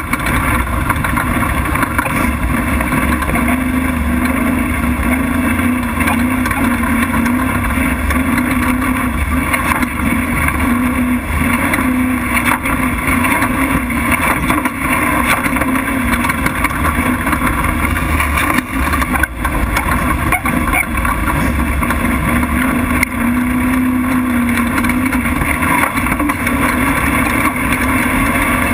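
Prerunner race truck's engine running hard at racing speed over a dirt track, a steady loud drone whose pitch wavers slightly as the throttle varies, mixed with wind and rumble from the rough ground.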